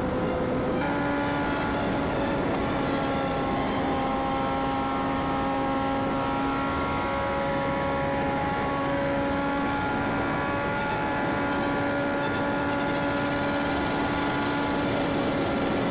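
Honda CB650R's inline-four engine running through a full Akrapovic exhaust at high road speed, holding a steady note over loud wind rush, with a brief change in the note about a second in.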